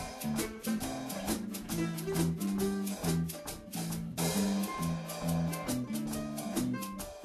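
Background music: an upbeat instrumental tune with a moving bass line and a steady beat of percussion.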